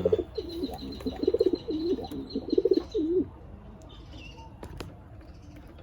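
Racing pigeons cooing, a run of throaty warbling coos through the first three seconds, then quieter with a few light clicks.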